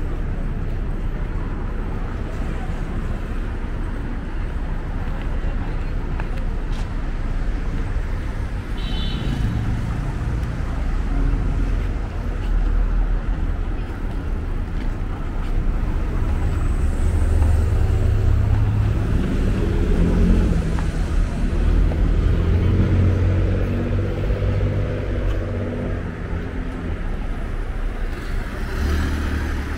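Street traffic: cars passing with a steady low rumble. In the second half a heavier vehicle's engine runs close by, growing louder and then fading.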